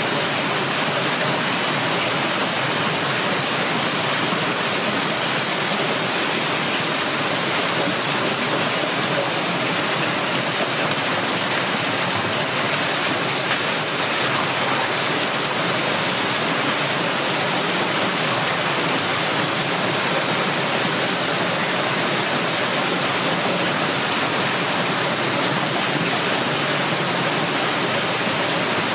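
Steady rush of running water through a fish grading machine, even and unbroken throughout.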